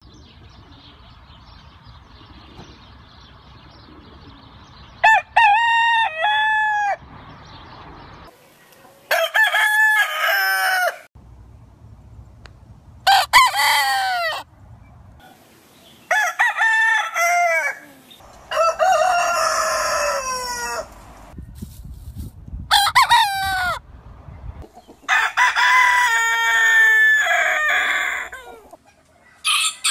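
Roosters crowing one after another, about eight crows of one to three seconds each with short gaps, starting about five seconds in; the crows come from different roosters.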